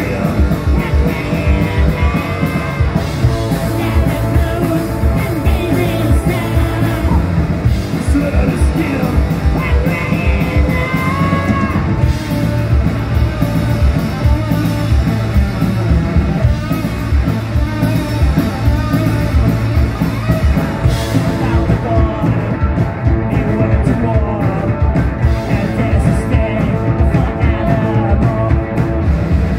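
Rock band playing live: electric guitar and drums over a steady beat, with a sung vocal line.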